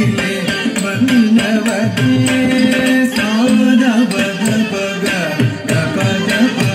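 Carnatic music accompanying a Bharatanatyam dance: a sung melody sliding between pitches over regular hand-drum strokes.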